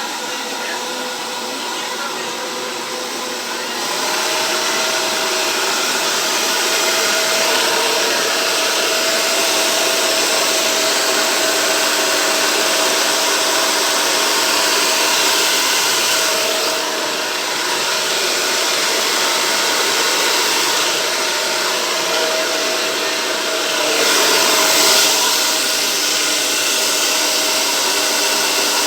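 Hand-held hair dryer running continuously, a steady blowing rush with a motor whine, used to blow wet acrylic paint across a canvas in a Dutch pour. It gets louder about four seconds in, dips briefly a little past halfway, and swells again later.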